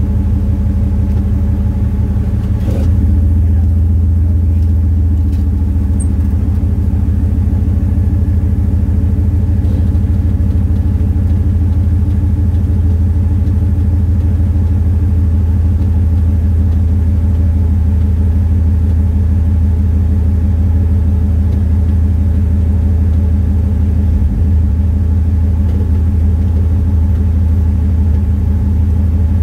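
Off-road vehicle's engine running steadily under load with a low drone, slightly louder from about three seconds in, while the vehicle is held nose-up on a steep rock climb.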